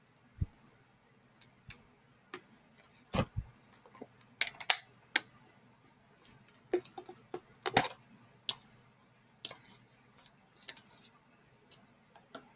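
Slime and its small plastic tubs being handled: irregular sharp clicks and pops, the loudest ones clustered in the middle.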